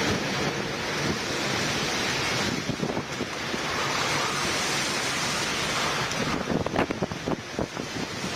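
A torrential rainstorm: heavy rain pouring down and strong wind blowing, with gusts buffeting the microphone. The downpour is heaviest through the middle, and irregular gust thumps on the microphone come in the last couple of seconds.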